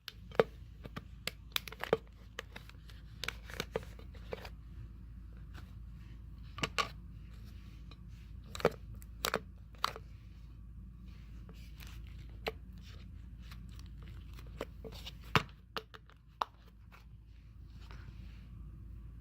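Slime being handled and squished, giving irregular sharp clicks and crackles over a low steady hum.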